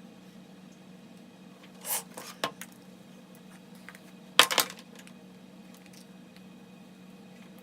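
Two short bursts of clattering clicks, small hard objects knocking together, about two seconds in and again, louder, about four and a half seconds in, over a steady low hum.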